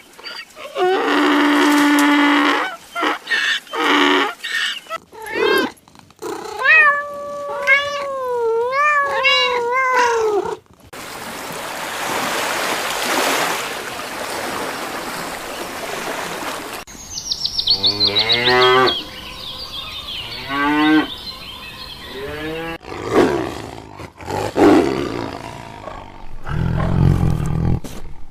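A run of separate animal calls, one after another: long pitched calls, some wavering up and down in pitch, and a rough, noisy stretch in the middle.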